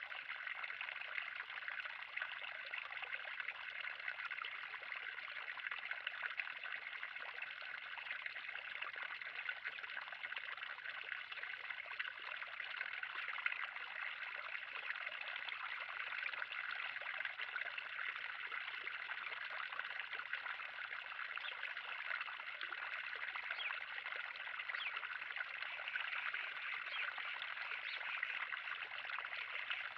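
Water running and trickling steadily into a 3000-gallon garden pond, a continuous splashing with many small droplet sounds.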